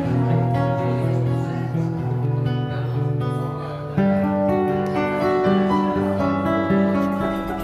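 Live instrumental music on a stringed instrument, long held notes over a low bass line, with a sudden louder entry about four seconds in.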